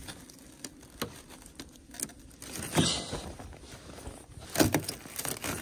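A frozen truck door being tugged at: scattered sharp clicks and knocks from the handle and latch at uneven intervals, with louder knocks about three seconds in and again near the end.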